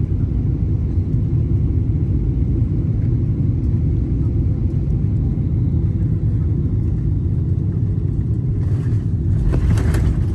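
Cabin noise of a Boeing 777-300ER on landing: a steady low rumble of engines and airflow over the wing with full flaps set. Near the end a rush of louder noise with a few thumps marks the main wheels touching down and the spoilers deploying.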